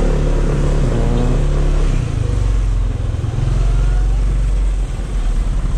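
Motorcycle engine running as the bike rides along at low speed, with road noise.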